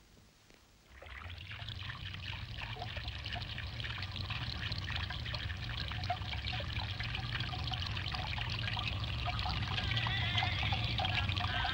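Running, splashing water fading in about a second in and growing steadily louder. Near the end, a wavering high tone comes in over it.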